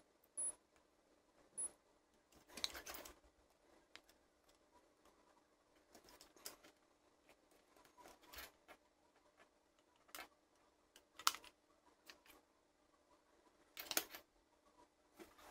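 Two short high beeps from a multimeter's continuity tester in the first two seconds, then faint scattered clicks and rustles of hands handling a plastic toy casing and its wires, the sharpest clicks about 11 and 14 seconds in.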